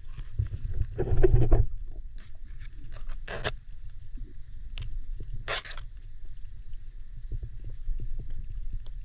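Underwater sound picked up through a GoPro's housing while snorkeling: a steady low rumble of water moving against the camera, scattered small clicks, a louder rushing swell about a second in, and two short bursts of hissing noise around the middle.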